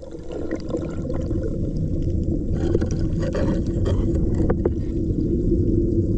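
A muffled rush of moving water close to the microphone with a steady low hum, growing louder over the first couple of seconds and then holding.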